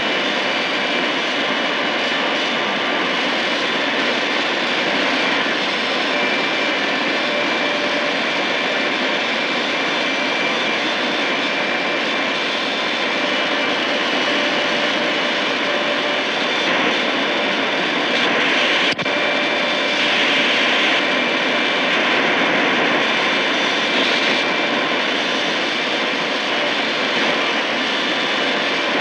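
Shortwave static hiss from a Tecsun PL-880 receiver tuned across empty frequencies between stations, loud and steady, with faint whistles of distant carriers that come and go as the frequency changes. A sharp click about two-thirds of the way through.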